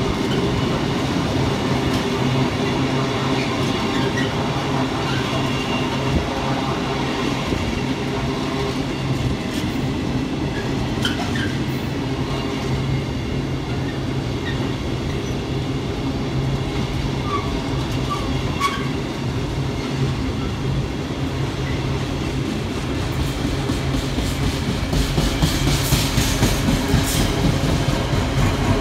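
Container freight train's flat wagons rolling past at speed: a steady rumble of wheels on rail with clickety-clack over the rail joints. It grows louder and more clattery near the end.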